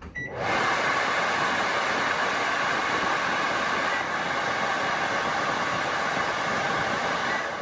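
Over-the-range microwave's vent fan switched on with a short keypad beep, then running steadily with a loud, even rush of air. Near the end another beep sounds and the fan begins to wind down.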